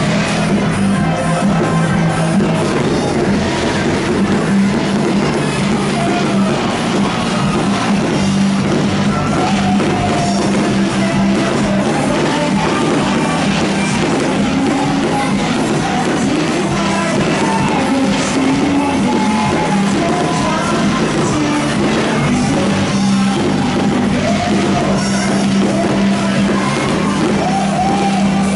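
Loud live band music with a singer, a rock-style pop song.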